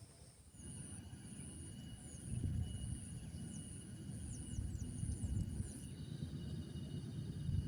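Outdoor natural ambience: a low rumbling noise, a steady high insect drone, and a run of short falling bird chirps in the middle.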